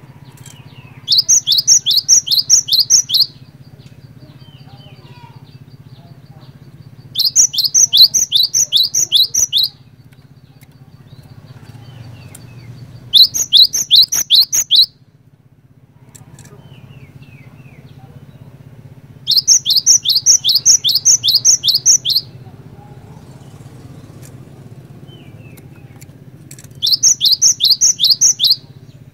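Cinereous tit (glatik batu) singing: five bursts of quick, evenly repeated high notes, each lasting two to three seconds with pauses of several seconds between, over a faint steady low hum.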